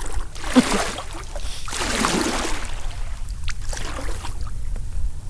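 Water swishing and splashing around a kayak, with two louder swishes in the first three seconds, over a steady low wind rumble on the microphone.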